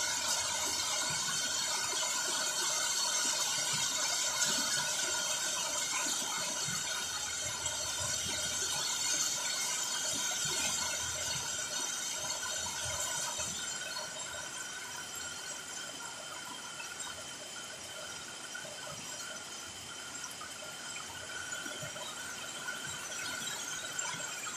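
Steady rain hiss that eases a little about halfway through, with several faint steady high tones, like a thin whine, running under it.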